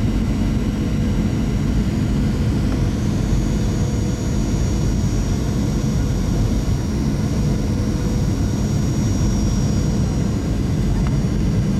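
Jet airliner cabin noise on final approach, heard from a window seat by the wing: a steady rumble of the turbofan engines and airflow, with a thin high engine whine that comes in about three seconds in.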